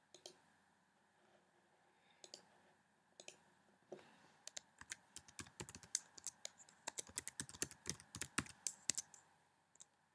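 Typing on a computer keyboard: a few separate clicks, then a fast run of keystrokes for several seconds that stops about a second before the end.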